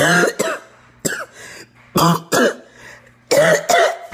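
A woman coughing loudly and repeatedly with her mouth right at the microphone: harsh staged coughs in short bouts, mostly pairs, about one bout a second.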